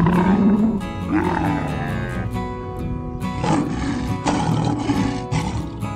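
Background music with animal calls laid over it: a dromedary camel's call, its throat sac pushed out of its mouth, in the first couple of seconds, then a lion calling in rough bursts from about three seconds in.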